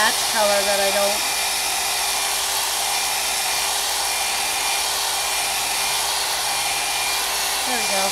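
Handheld hair dryer blowing steadily: a constant rush of air with a thin high whine.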